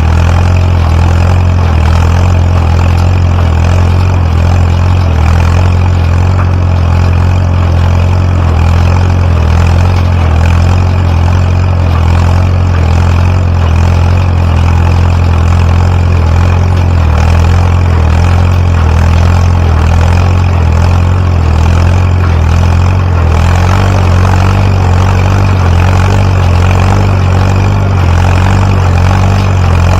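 Farm tractor engine running steadily at constant speed while driving a Massey Ferguson No. 12 square baler, with a strong low hum.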